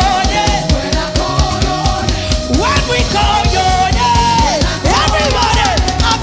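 Church praise band music: drums keep a steady beat under a lead line that slides up and down in pitch.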